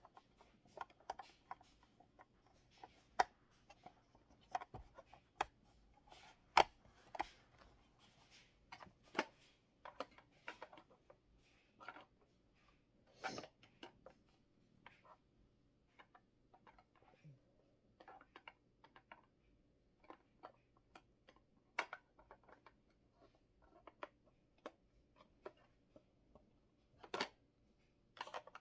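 Small plastic parts of a toy mini fridge being handled and fitted: faint, irregular light clicks and taps.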